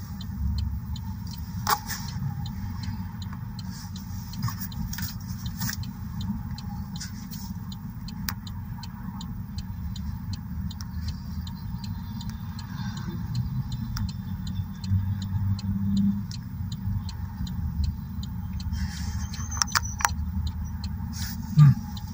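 Car idling in stopped traffic, heard from inside the cabin as a steady low rumble, with a few faint clicks.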